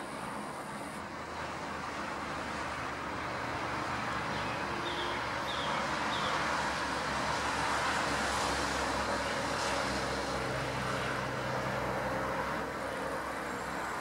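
Distant motor noise: a steady rushing sound with a low engine hum that swells in the middle and eases near the end, with a few faint high chirps about five seconds in.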